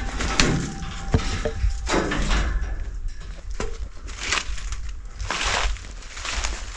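Footsteps crunching irregularly over leaves and debris, with a few sharp knocks among the steps.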